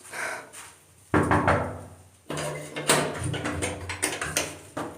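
A stuck toilet door being forced open, rattling and banging against its frame, with a sudden jolt about a second in and another a second later.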